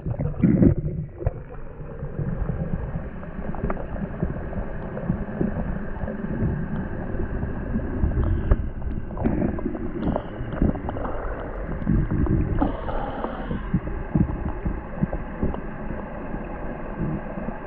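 Muffled rumble and gurgle of stream water picked up by a camera held underwater, with scattered soft knocks.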